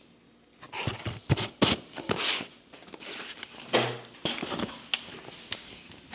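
Crinkling and clicking of a packaged tub of cookie dough being handled, with short rustles and knocks.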